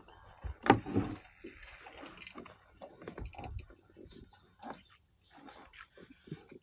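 A splash and sloshing water beside a kayak as a hooked pike struggles near the surface, the loudest about a second in, followed by scattered light knocks and clicks.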